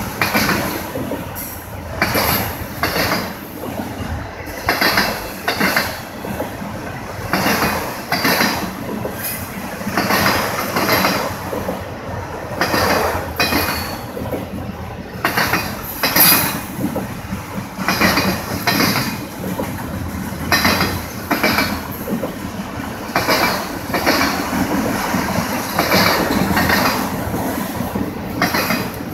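Norfolk Southern autorack freight train rolling past, steel wheels clacking over the rail joints in a long run of knocks under a steady rumble.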